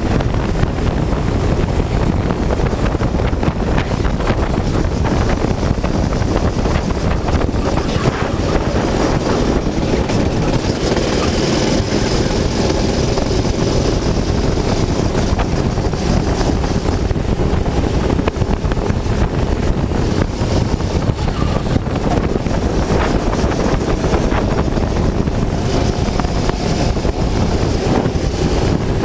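Go-kart engine running hard on track, its note shifting up and down with the throttle, under loud wind rushing over the onboard camera microphone.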